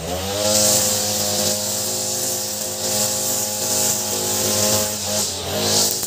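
Ogawa 26cc multi-tool brush cutter engine revving up at the start, then running steadily at high speed, its nylon trimmer line spinning against the grass between concrete paving slabs.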